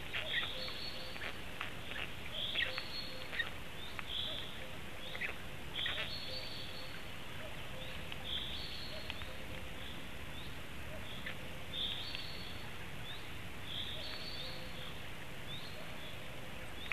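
Small woodland bird singing, repeating a short high two-note phrase every second or two over a steady hiss, with a few short clicks in the first few seconds.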